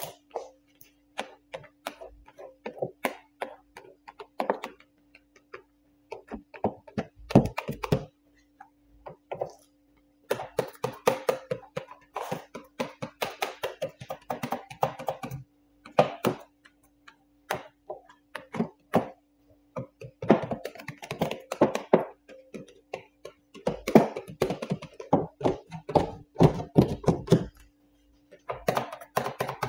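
Quick clicks, taps and knocks from hands and a squeegee working paint protection film over a wooden bench top, coming in bursts with short pauses between, over a faint steady hum.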